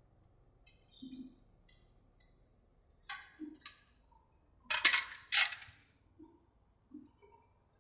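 Hard objects being handled: scattered light clicks and soft knocks, then two sharp clanks about half a second apart just past the middle.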